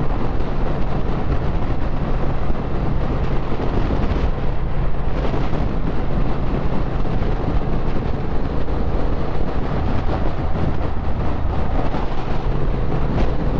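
Triumph Speed Twin 1200's parallel-twin engine running steadily under way, with wind rushing over the microphone.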